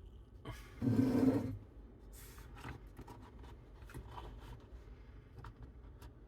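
Handling noises: a short rubbing rustle about a second in, then scattered light clicks and scrapes.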